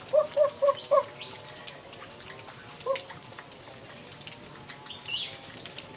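A wood cooking fire crackling and ticking, with a bird calling in short repeated notes: four quick calls in the first second and one more about three seconds in.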